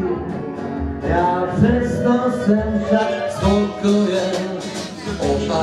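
Live acoustic band playing a country-style song: several strummed acoustic guitars, with a voice singing over them.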